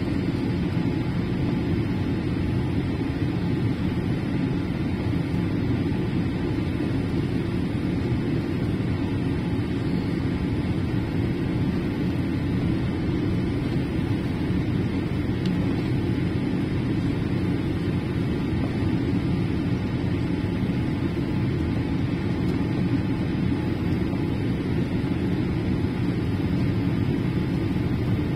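Steady low rumble of cabin noise inside a Boeing 787-8 airliner on final approach for landing, even in level throughout.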